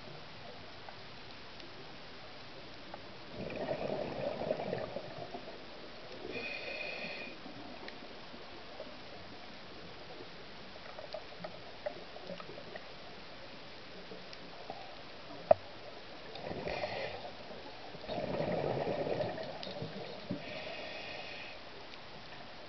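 Scuba diver's breathing through a regulator, heard underwater: short hissing inhalations and bubbly exhalations, a few breaths with a long pause in the middle. A single sharp click is the loudest sound, about two-thirds through.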